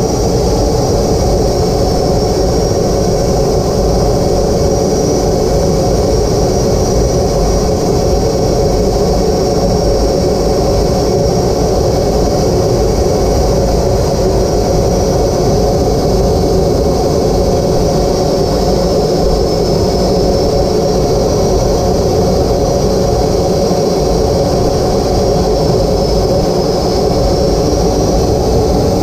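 Steady in-cockpit noise of an Aero L-39 Albatros jet trainer in flight: its jet engine running at a constant setting together with rushing airflow, with a thin high whine that wavers slightly in pitch.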